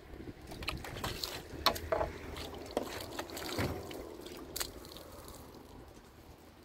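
A series of irregular knocks and clatter, some sharp, over a light hiss, thinning out after about four and a half seconds.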